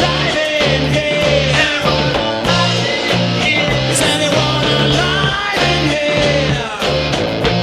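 A rock trio playing live: guitar, bass guitar and drums, with a steady pulsing bass line.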